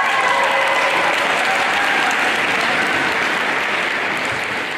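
Audience applauding, steady at first and then gradually dying away toward the end.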